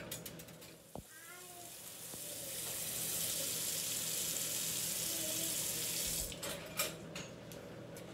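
Dry rice poured from a measuring cup into a saucepan of water: a steady hiss that swells for a second or two, holds, and stops abruptly about six seconds in. A few light clicks against the pot follow.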